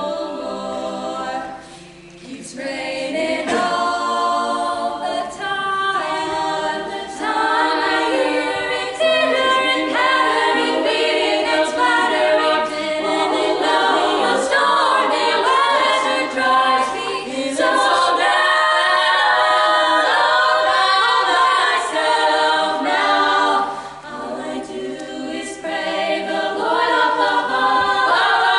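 Choir singing a cappella in close harmony, the voices dropping off briefly about two seconds in and again near the end before coming back together.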